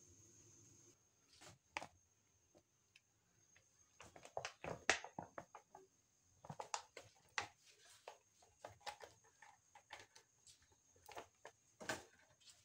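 Cooking oil crackling and spitting in a steel wok over a gas flame: sharp, irregular pops, sparse at first and coming thick and fast from about four seconds in.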